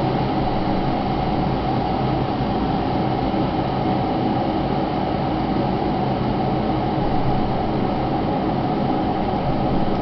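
Redmond RK-G152 glass electric kettle heating about a litre of water, a steady rushing rumble as the water comes up to the boil.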